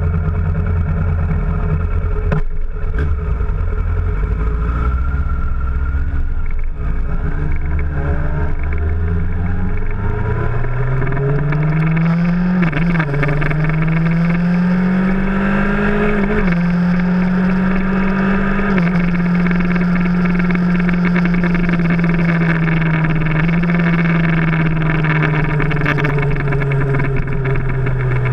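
2000 Yamaha R1's 998 cc inline-four engine under way, first a heavy low rumble, then its pitch climbing, dipping briefly at gear changes, holding and easing off near the end. It is overlaid by loud buzzing, rattling noise from a GoPro Hero 3 in its housing, which the rider suspects is the camera bouncing inside the housing or wind.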